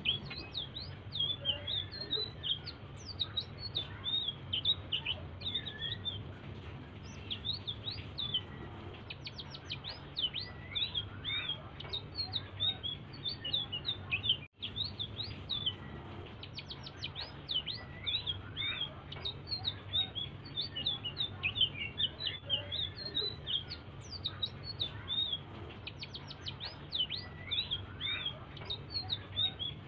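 A selendang biru songbird singing continuously in fast, high chirps and short sweeping notes, the soft song used as a lure to set other birds singing. A low steady hum runs underneath, and the sound cuts out briefly about halfway through.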